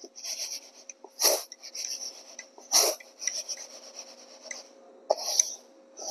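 Raw rice grains rustling and scraping against a steel plate as hands sift and shake them to pick out grit. There are three louder sweeps, about a second in, near the middle and near the end.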